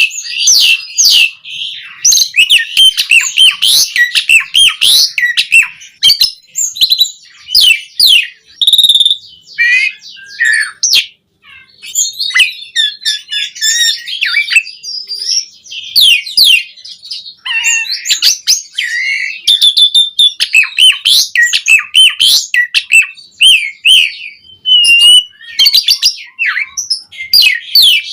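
Asian pied starling (jalak suren) singing in full voice: a long, varied stream of whistles, chirps and harsh quick notes packed with mimicked phrases, with a brief pause partway through.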